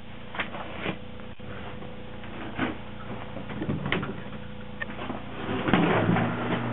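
Powered net-winding spool for an under-ice gill net, its motor giving a steady low hum that gets louder shortly before the end. Scattered knocks and clunks come from the net and gear being handled at the hole.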